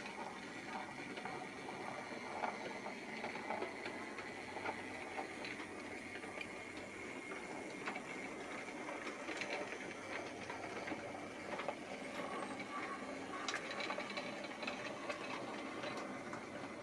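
H0e-scale model C50 narrow-gauge diesel locomotive and its coaches running along the track: the small electric motor and gears whir steadily, with light clicking of wheels over rail joints and points.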